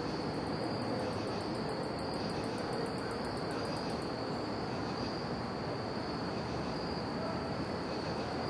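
Night insects, crickets, chirring in one steady high note over a low, even background rumble.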